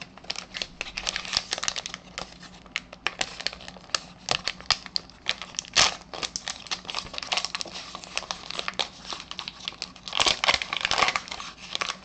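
Foil card pack crinkling and tearing as it is opened by hand, with louder rips about six seconds in and again around ten to eleven seconds in.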